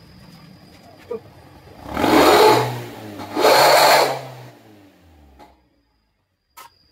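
Toyota Avanza Veloz automatic's exhaust, fitted with a bolt-on growl-type silencer insert, idling and then revved in two short blips about a second apart, each swelling loud and falling back to idle.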